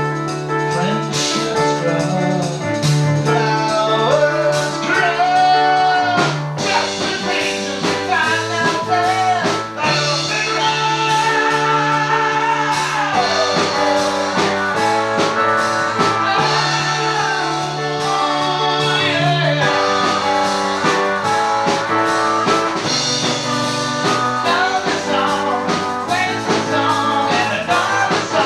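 A band playing a song with singing, a full mix with guitar, keyboard and vocals.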